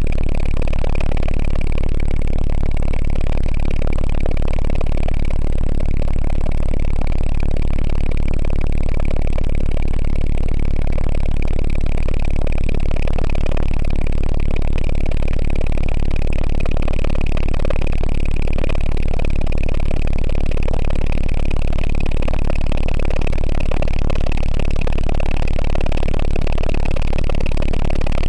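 Alouette II helicopter heard from on board in flight: a loud, steady engine and rotor rumble with a constant high whine over it.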